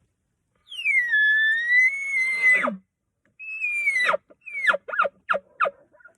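Bull elk bugling: a long high whistle that ends in a sharp drop, then a second, shorter falling whistle followed by about five quick chuckles.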